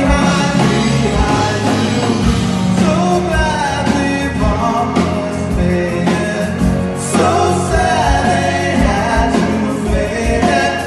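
Live rock band playing loudly: a singer over electric guitars, bass and a drum kit keeping a steady beat.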